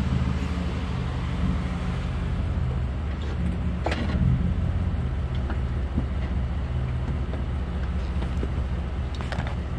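Ford F-150 pickup's engine running steadily at low speed as the truck crawls over slickrock, with a brief sharp click about four seconds in.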